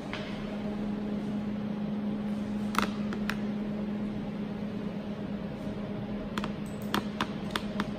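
Steady low machine hum from the robotic work cell, with a few sharp clicks about three seconds in and a quick run of clicks near the end.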